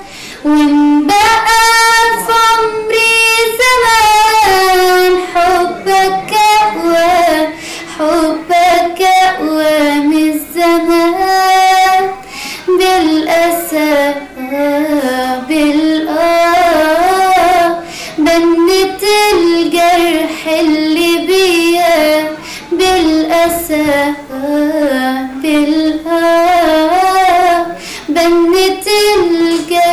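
A young woman singing an Arabic song unaccompanied, solo voice with long bending, ornamented notes broken by short breaths.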